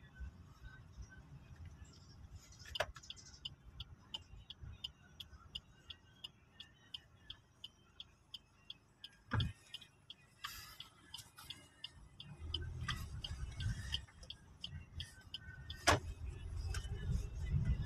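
Car turn-signal indicator ticking steadily for several seconds as the car turns a corner, over a low engine and road rumble inside the cabin that grows louder near the end. A few sharp knocks stand out, the loudest about nine seconds in.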